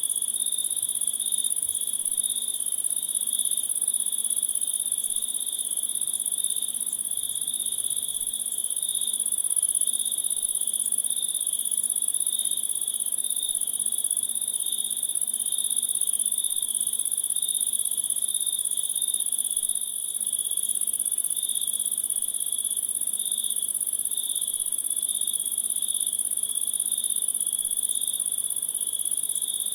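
Steady chorus of insects trilling without a break: a rapidly pulsing high trill, with an even higher continuous shrill layer above it.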